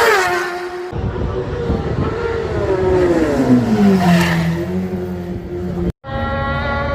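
Racing motorcycles at full throttle in several edited clips. One passes with a quick fall in engine pitch, a second passes with a long, sliding drop in pitch, and after a brief dropout near the end a third holds a steady high engine note.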